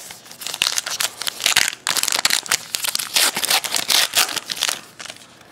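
A 2012 Topps Gypsy Queen baseball card pack being torn open by hand. Its wrapper crinkles and crackles in a dense run of rustles for about four seconds, then dies down near the end.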